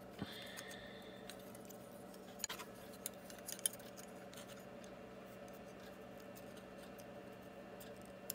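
Light clicks and taps of thin carbon fibre drone-frame plates being handled and slotted together. The sharpest clicks come a few seconds in, with a brief faint squeak near the start, all over a steady low hum.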